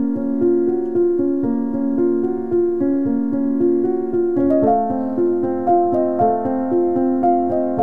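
Background music of gentle piano-like keyboard notes playing a steady melody, moving up in register about halfway through.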